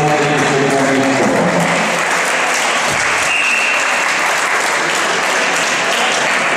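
Spectators applauding the end of a freestyle wrestling bout, with a few voices shouting in the first second or so.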